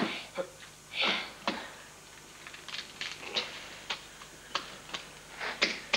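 Hand handling an onion and bits on a wooden workbench: scattered light clicks and taps, with a short breathy puff about a second in. The drill press is not running.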